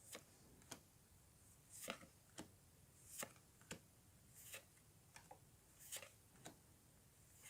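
Pokémon trading cards being slid one at a time off a booster pack's stack: a faint swish and a soft snap from each card, about ten in all, one every half second to second.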